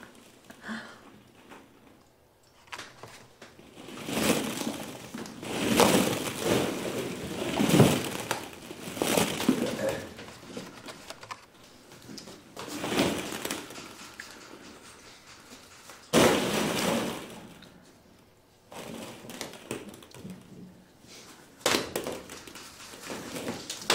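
Plastic ball-pit balls clattering and rustling against each other in repeated bursts, stirred up as a capuchin monkey is swung and lands among a room full of them.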